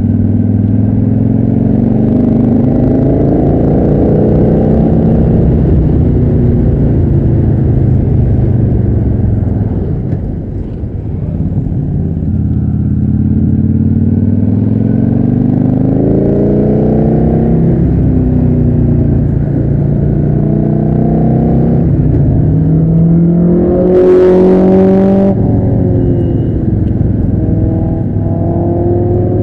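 Victory Hammer 8-Ball motorcycle's V-twin engine heard from the saddle while riding, its pitch climbing and falling again and again with throttle and gear changes through the curves, easing off briefly about ten seconds in. About 24 seconds in, a short rush of noise as a car passes the bike.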